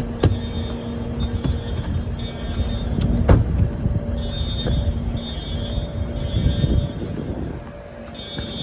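Edwards Integrity fire alarm horn sounding in a temporal-three pattern: three short blasts about a second apart, a pause, then three more. Behind it is a steady low rumble, with a sharp knock near the start and another a third of the way in.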